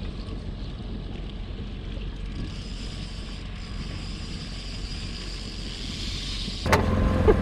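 Steady low rumble of a trolling boat's outboard motor, with wind on the microphone. About two-thirds of a second before the end, a sharp click is followed by a louder, steadier hum.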